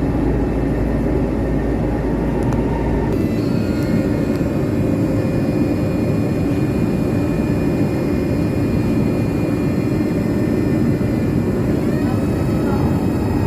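Tatra RT8D5M light rail car running, a steady rumble of its bogies and wheels on the track. Thin high whining tones come in about three seconds in and shift in pitch near the end.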